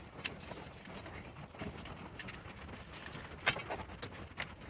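Faint, scattered metallic clicks and clinks of bolts and washers being handled and threaded in by hand on a UTV snowplow mount bracket, with a louder click about three and a half seconds in.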